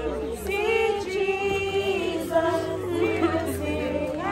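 A group of mourners singing a hymn together, many voices in unison on long held notes.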